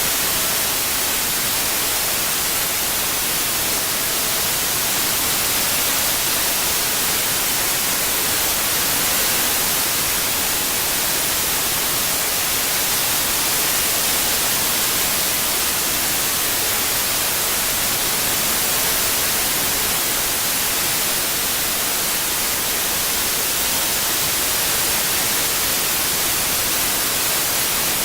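Steady white noise: an even, unbroken hiss, brightest in the high frequencies.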